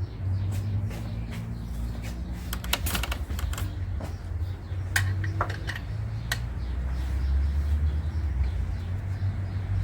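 Metal hand tools clicking and knocking in the engine bay while the serpentine belt is being removed, a quick run of clicks in the middle, over a steady low hum.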